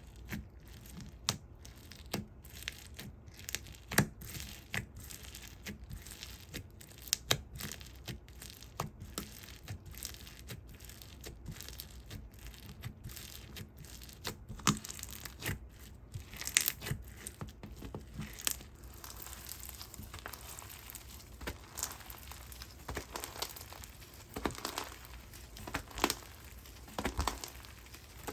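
Slime being handled and squeezed. It makes a run of sharp clicks and pops, which turns into denser, more continuous crackling about halfway through.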